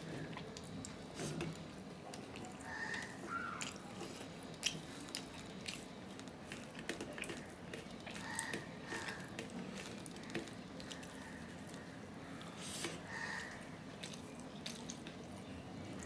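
Close-miked eating sounds: wet chewing and small mouth clicks, with fingers mixing rice and mashed hilsa fish on a steel plate.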